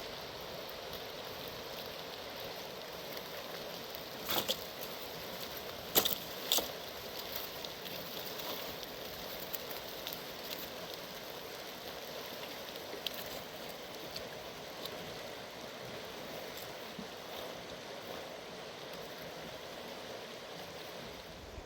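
Steady rush of a mountain river, with a few sharp knocks or clicks over it in the first third, the loudest about a quarter of the way in.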